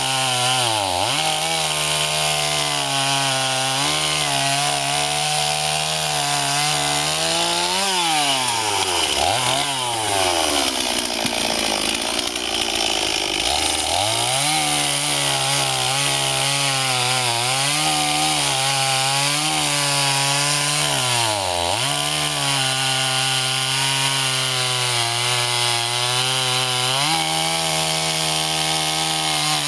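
Stihl 026 two-stroke chainsaw cutting through a log at high revs, its pitch sagging several times as the chain loads up in the wood. It bogs down deepest about eleven seconds in, then climbs back to full speed.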